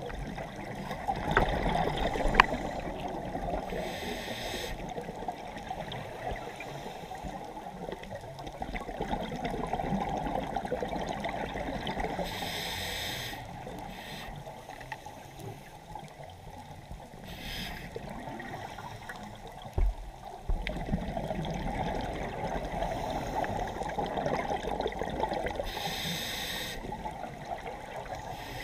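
Underwater sound heard through a dive camera's housing: a steady muffled gurgle, broken four times by a short rush of scuba exhaust bubbles from a regulator.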